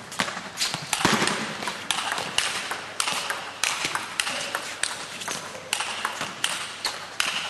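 Celluloid table tennis ball in a fast rally, clicking sharply off the rackets and the table, about two to three hits a second.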